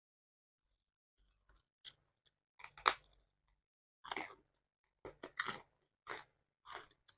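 Close-up chewing and crunching of crisp food in the mouth: a run of short crackly crunches that starts about two seconds in, the loudest just before three seconds, then roughly one or two a second.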